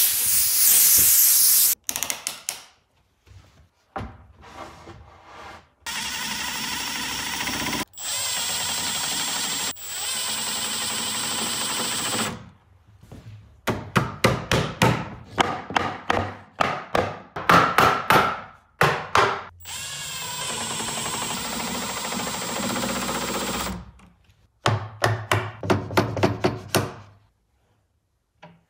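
Cordless drill and impact driver working screws into pine boards: steady stretches of a motor with a high whine, alternating with stretches of rapid rattling impacts. A loud hissing burst opens the clip.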